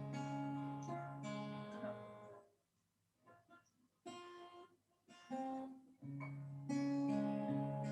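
Acoustic guitar strumming chords as accompaniment to a chant. About two and a half seconds in it drops almost to nothing, a few single notes sound, and full strumming resumes near the end.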